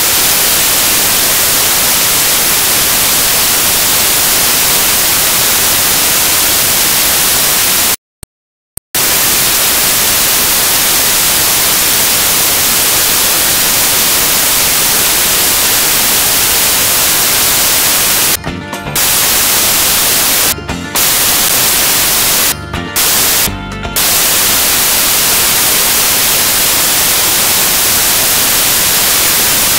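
Loud, steady static hiss like white noise. About eight seconds in it cuts out to silence for about a second, and four brief dropouts follow a few seconds later.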